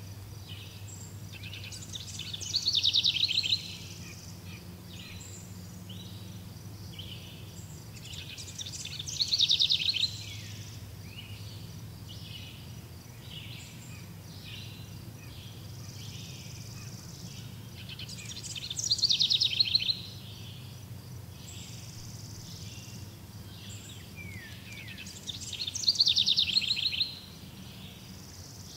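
A bird sings a loud, fast trilled phrase four times, about every seven seconds, with fainter chirps in between over a steady low hum.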